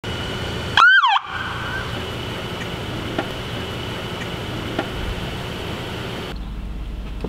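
Police SUV siren giving one short whoop about a second in, rising then falling in pitch, over a steady background hum. A car door shuts a few seconds later.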